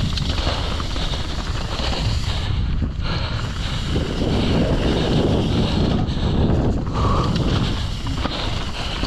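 Wind rushing over the camera microphone and tyres on dirt as a mountain bike descends a trail at speed, with short knocks and rattles from the bike over rough ground.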